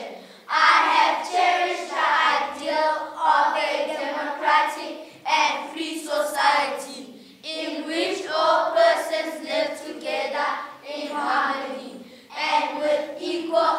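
Children's voices reciting a speech together, several at once, in phrases a second or two long with short breaks between them.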